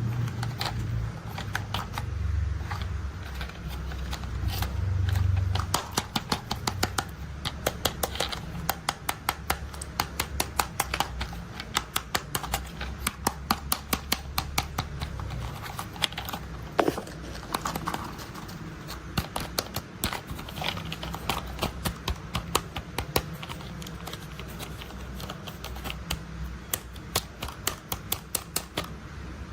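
Plastic toy construction vehicles being handled, giving trains of sharp clicks and ticks several times a second. A low rumble runs under the first few seconds.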